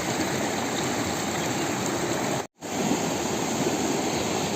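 The Chhota Rangit, a fast mountain river, rushing steadily over rocks. The sound cuts out completely for a split second about halfway through.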